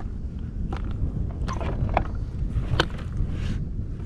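Steady low wind rumble on the microphone on a kayak on open water, with a few light clicks and knocks scattered through it as gear is handled on the plastic kayak.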